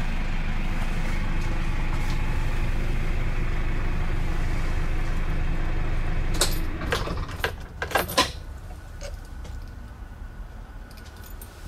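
GAZelle Next bus engine idling steadily, heard from inside the cab, then switched off with the ignition key about six and a half seconds in: the hum drops away and a rattle of jangling keys and clicks follows.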